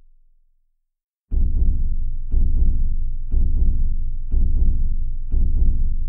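Slow heartbeat: after a fading tail and a moment of silence, a steady lub-dub of paired low thumps starts just over a second in, about one beat per second.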